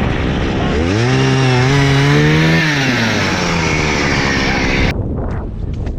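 Gas-powered ice auger drilling a hole through the ice: the two-stroke engine revs up about a second in, holds, then drops back. It cuts off suddenly about five seconds in, leaving wind noise on the microphone.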